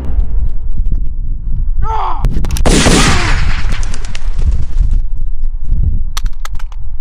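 A single revolver gunshot about two and a half seconds in, with a long ringing tail that cuts off about two seconds later. A brief sliding pitched sound comes just before it, and wind rumbles on the microphone throughout.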